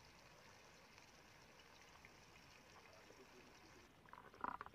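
Near silence with a faint steady hiss, then, about four seconds in, a few brief clinks of a steel spoon against the aluminium frying pan.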